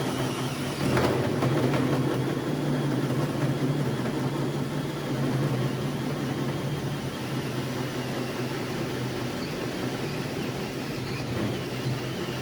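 A motor running steadily with a continuous low hum.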